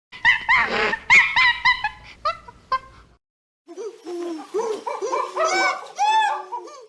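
A quick series of short, high-pitched animal cries, each rising and falling in pitch. The sound cuts off a little past three seconds in, and more overlapping, somewhat lower cries start about half a second later.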